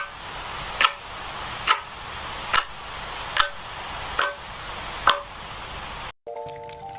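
Slime being pressed, giving a sharp click or pop about once every second over a steady hiss; it cuts off suddenly near the end.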